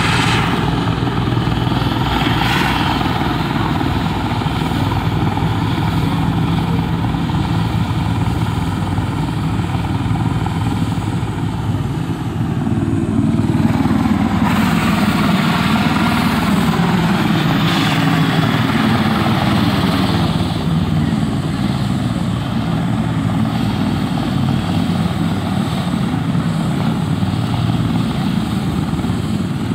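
Helicopter running on the ground: a steady turbine and rotor noise, dipping briefly about twelve seconds in and then rising again.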